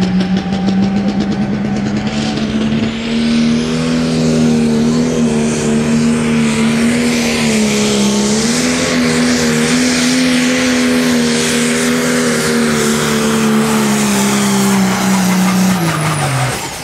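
Pro stock pulling tractor's turbocharged diesel engine at full throttle through a pull, a loud steady note held for about fifteen seconds. A high whine rises in the first few seconds, and near the end the engine note and the whine fall away as the throttle comes off.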